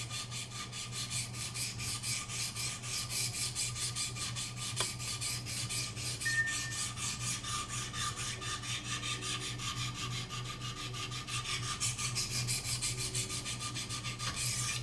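Wicked Edge sharpener's 400-grit stones rasping in quick, even strokes along a chisel-ground knife edge, about five strokes a second, stopping at the end.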